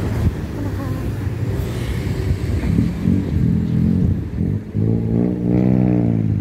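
Road traffic at a street crossing: a car drives past near the start, and from about five seconds in a steady low engine drone from a vehicle.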